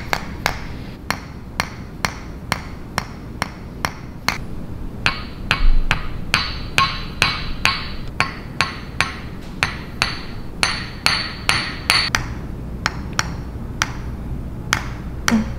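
A steady run of sharp knocks or clicks, evenly spaced at about two and a half a second, over a low background hum.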